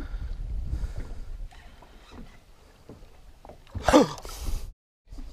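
Water lapping against a fishing boat's hull, with a low rumble at first. About four seconds in there is a brief loud sound falling in pitch, then the audio cuts out abruptly.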